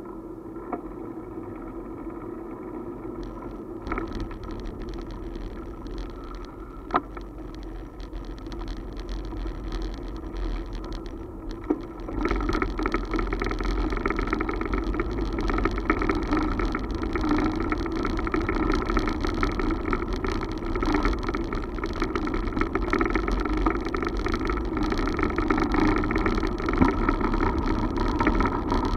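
Road and ride noise of a two-wheeler rolling through city streets, a steady rumble with a few short knocks. About twelve seconds in it turns louder and rougher as the wheels roll from asphalt onto brick paving.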